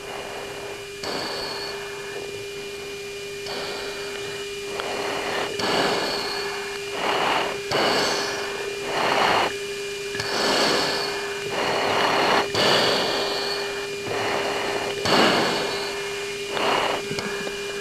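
A pilot's breathing picked up by the oxygen-mask microphone on the cockpit intercom: hissing breaths every second or so. A steady hum-like tone and radio hiss run underneath.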